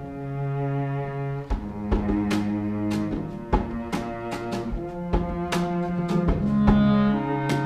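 Pit orchestra playing an instrumental passage with no singing. It opens on held low notes, and about a second and a half in, sharp percussion hits join in a steady rhythm.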